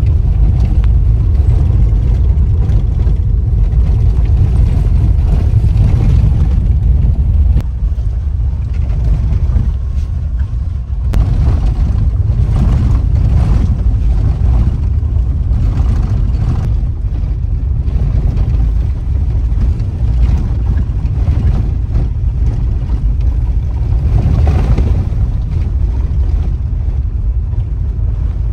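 Vehicle driving on a rough gravel road, heard from inside the cabin: a steady low rumble of engine and tyres with a few sharp knocks and rattles. The rumble eases for a few seconds about eight seconds in, then picks up again.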